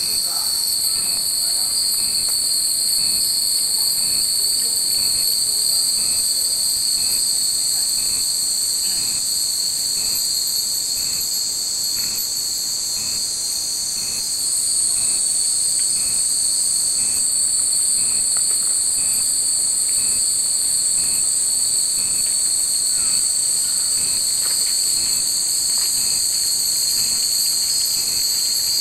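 A chorus of cicadas droning steadily at a high pitch, growing louder about halfway through, with a faint tick about once a second. The glass fūrin wind chimes hanging in the tree tinkle faintly now and then.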